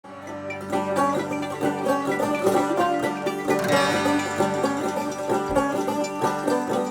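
Background music: upbeat plucked banjo tune in a bluegrass style, fading in over the first second.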